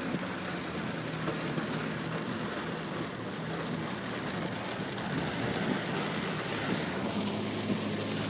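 Heavy rain, really loud, falling on a car's roof and windshield, heard from inside the cabin, with a low steady hum from the car running underneath.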